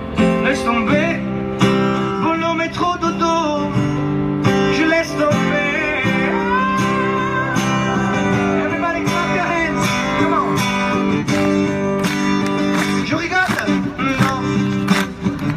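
Acoustic guitar strummed steadily, with a voice singing a melody over it.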